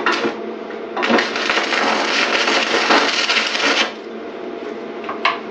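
Stick-welding arc with a 6011 rod crackling and hissing: a couple of short strikes, then a steady burn of about three seconds that cuts off abruptly, part of filling a hole in thin sheet metal by tacking in short bursts and letting it cool. A steady hum runs underneath.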